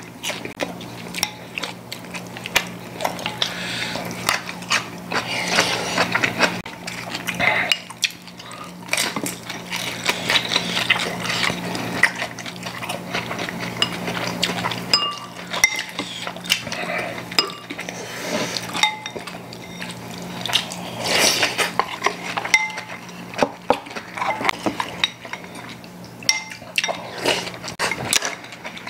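Chopsticks and spoons clicking and clinking against ceramic bowls and dishes during a meal, many short irregular taps, over a steady low hum.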